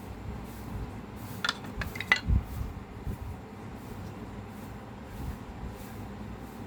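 A few quick clinks and knocks of kitchen utensils being handled, about one and a half to two and a half seconds in, over a steady low hum.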